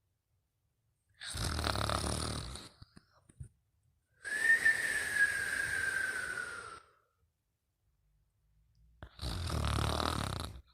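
Snoring in sleep: two rough, low snores about a second and a half long, with a longer whistling breath between them whose whistle slides slowly down in pitch.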